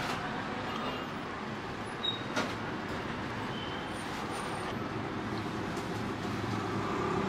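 Steady background din of a busy street, with traffic noise running through it and a couple of short knocks about two seconds in.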